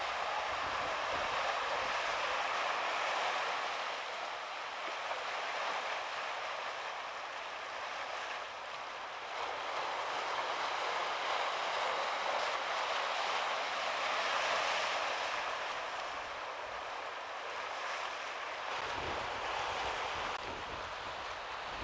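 Surf washing over lava rocks along the shore, a steady rushing hiss that eases and swells slightly.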